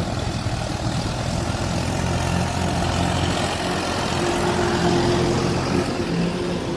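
An engine running steadily with a low hum under a dense rushing noise, with a higher steady whine joining about four seconds in.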